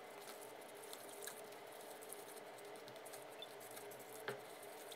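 Faint stirring of a thin fish-sauce and lime dressing with a plastic spoon in a glass bowl, working the coconut sugar until it dissolves: soft scrapes and small wet ticks, with one slightly louder knock about four seconds in.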